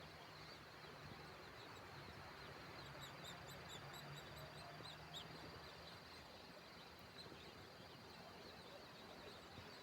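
Faint outdoor nature ambience: a bird giving a quick series of short, high chirps about three to five seconds in, over a steady background hiss with a constant high tone.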